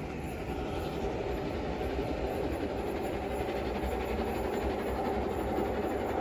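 Train hauled by the LMS Jubilee class 4-6-0 steam locomotive 45690 Leander running on along the track away from the platform, a steady rumble of wheels on rails.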